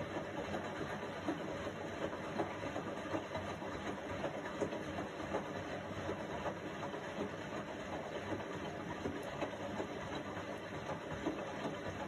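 Indesit front-loading washing machine running a wash, its drum turning with water and laundry in it. A steady churning with many small, irregular knocks.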